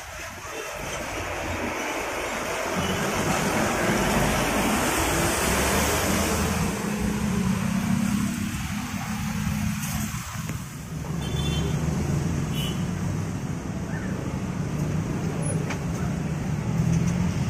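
Road traffic passing close by at a junction: a large bus moving past, then motorcycles and cars. A steady low engine rumble sits under tyre and traffic noise, swelling over the first few seconds and then holding.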